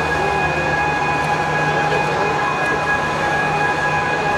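Overhead travelling cranes running with a Shinkansen car body slung beneath them: a steady electric motor hum with a whine held at several fixed pitches.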